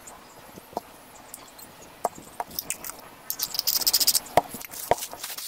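Tissue paper crinkling and rustling under hands, densest for about a second around the middle, with scattered small clicks and two sharper knocks near the end from the aluminium moka pot's parts being handled.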